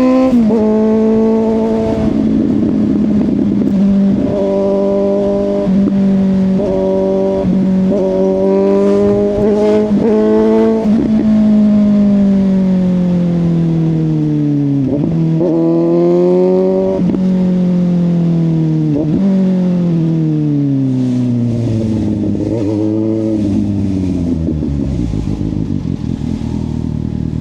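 Suzuki GSX-S750's inline-four through a Yoshimura exhaust, riding at fairly steady revs with brief dips every second or two. The revs then wind down, broken by about four quick blips as it downshifts while slowing, and settle into a low, steady note near the end.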